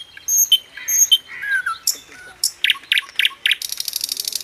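Birds calling: short clear high notes repeated about twice a second, then several sharp chips, then a fast rattling trill near the end.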